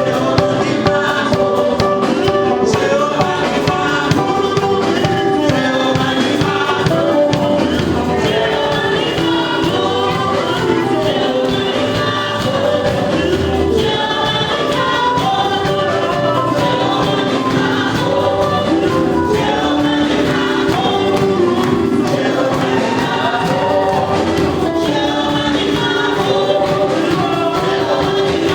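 Live gospel music: a choir singing over a band with drums, the music running without a break.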